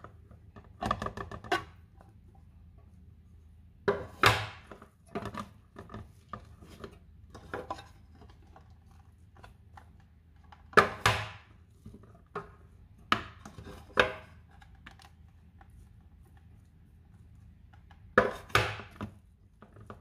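A wooden spatula and a plastic mould knocking and scraping against an aluminium steamer pot as sticky rice is scooped out. The sharp knocks come in small clusters every few seconds.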